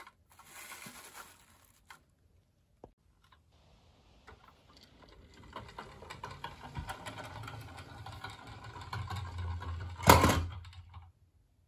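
Toy double-decker bus rolling down a wooden plank ramp, its wheels making a clicky rumble that grows louder over several seconds. About ten seconds in comes one loud knock as it drops off the end of the ramp, and the rolling stops soon after.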